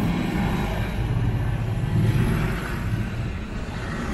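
Road traffic passing: cars and a truck driving by with a steady low rumble, slightly louder about two seconds in.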